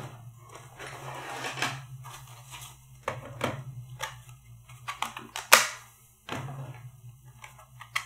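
Rummaging for a pinning tray: hard objects being picked up, shifted and set down, giving a string of clicks and knocks, the loudest knock about five and a half seconds in.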